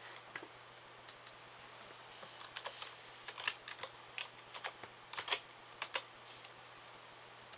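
Typing on a computer keyboard: a string of irregular key clicks as a word is typed, stopping about six and a half seconds in.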